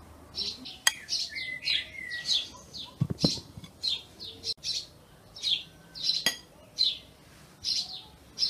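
A small bird chirping over and over, about two short chirps a second. A few sharp metal clinks of a spoon against the pan as fried minced meat is spread over the bread, with one low knock about three seconds in.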